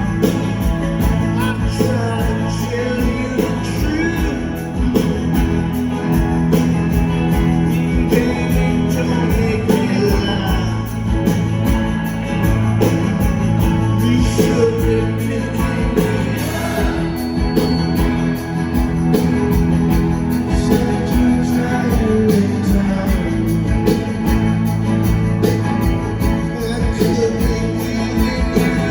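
Live rock band playing: electric guitars, bass and drums with a steady beat, and a voice singing over the music.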